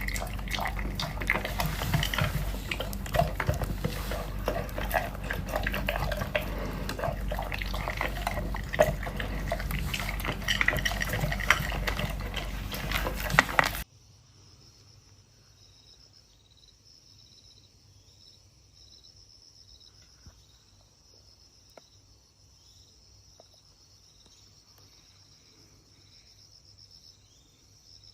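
Water splashing and sloshing with many small clicks and clatters, cutting off abruptly about halfway through. A faint, steady, high pulsing insect trill follows, like crickets.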